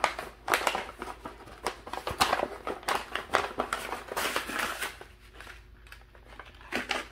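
Brown kraft paper envelope rustling and crinkling as it is handled and opened, a run of irregular crackles that thins out about five seconds in.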